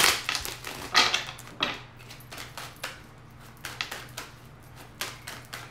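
Tarot cards being shuffled and handled by hand: an irregular string of short taps and rustles, over a faint steady low hum.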